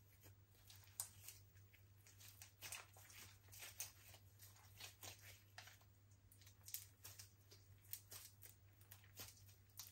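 Slime being kneaded and stretched by hand, making irregular small sticky clicks and crackling pops, over a faint steady low hum.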